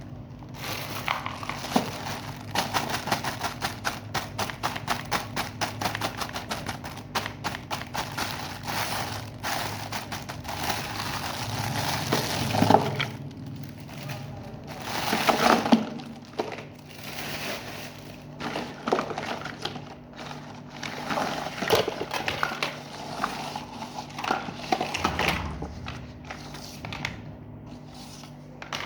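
Unboxing handling noise of a miniature plastic toy kitchen set and its packaging: rapid clicking and crinkling for the first twelve seconds or so, then scattered louder clacks and rustles of small plastic pieces.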